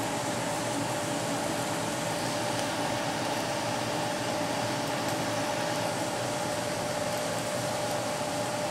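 Kitchen range-hood exhaust fan running steadily, an even rush of air with a constant hum.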